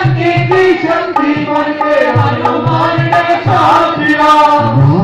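Hindu devotional bhajan music: hand drums keep a steady beat under sustained melodic lines, with a voice sliding in pitch around the middle.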